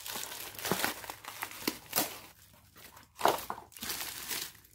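Bubble wrap crinkling and crackling as a boxed VVT timing gear is unwrapped from it by hand, in irregular handfuls with one louder crinkle a little over three seconds in.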